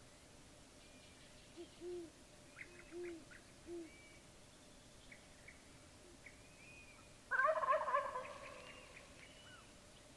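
Gould's wild turkey gobbling once, a loud rattling gobble about seven seconds in that trails off over a couple of seconds. Before it, small birds chirp faintly and a few soft low hoots sound.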